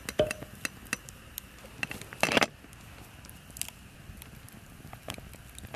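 Firewood crackling in a campfire: scattered sharp pops and snaps, with a louder cluster of crackles about two seconds in.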